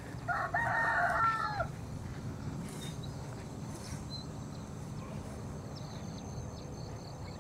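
A rooster crowing once, a call of about a second and a half that drops at its end, over a steady low background hum with a few faint high bird chirps.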